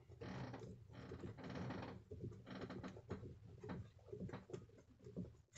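Hand unscrewing the rear fixings of a Raymarine ST4000 autopilot control head: faint rasping and scraping of the fastener threads and fingers against the plastic casing, in short bouts with small clicks.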